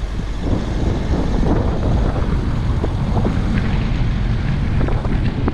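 A vehicle running, with wind buffeting the microphone.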